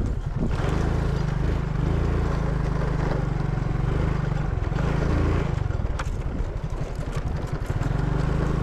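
An engine running steadily, its low hum unbroken throughout, with a hiss of wind or road noise over it.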